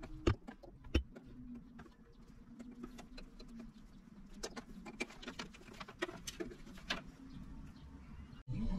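Faint handling noises as clear plastic fuel hose is routed along a go-kart chassis and pushed onto its fittings: scattered small clicks, taps and rubbing, with two sharper knocks about a quarter second and a second in.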